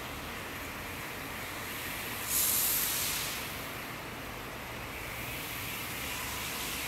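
A thin stream of dark granular material pouring into a bowl, a steady grainy hiss that surges louder and brighter for about a second, about two and a half seconds in.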